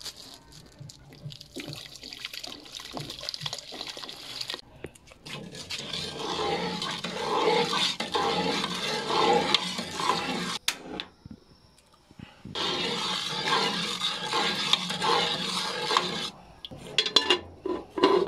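Granulated sugar poured from a plastic bag into a pot of liquid, then a ladle stirring it in a metal pot, swishing rhythmically in two long spells with a short pause between. Near the end comes a few sharp clatters of metal, as of a lid set on the pot.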